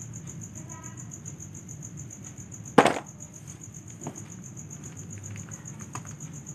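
A single sharp plastic clack about three seconds in as a plastic toy rhinoceros is dropped into a plastic basket among other toy animals, with two faint knocks after it. Crickets chirp steadily throughout.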